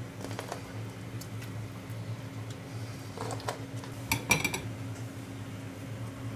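Kitchenware clinking: a tray and a china plate knocking together as food is slid off the tray, a few light clicks, then a quick cluster of sharper clinks about four seconds in. A steady low hum runs underneath.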